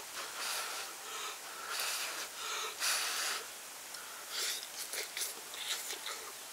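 A person slurping noodles off chopsticks in a series of short airy slurps, the longest about three seconds in, with a few small clicks near the end.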